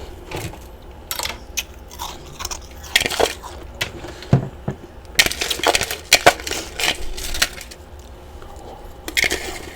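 Large chunks of freezer frost being bitten and chewed, an irregular run of loud crunches with short pauses between bites.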